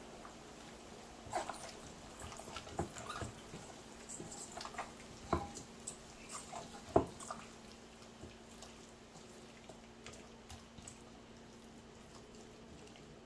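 Latex-gloved hands rubbing and squeezing seasoned raw chicken pieces in a stainless steel bowl: irregular wet handling noises and clicks, with a few sharper knocks, the loudest about seven seconds in. The handling goes quieter after about eight seconds.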